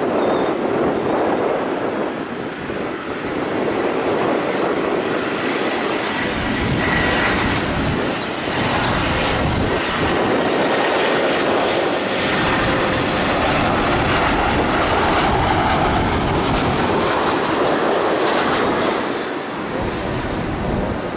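Twin GE90 jet engines of a Boeing 777-300ER running as it taxis: a steady rush with a faint high whine over it.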